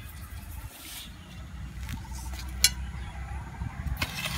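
Sugar poured into a metal pot of water and stirred in with a metal ladle to dissolve it for syrup, with a sharp clink of the ladle against the pot about two and a half seconds in, over a low steady rumble.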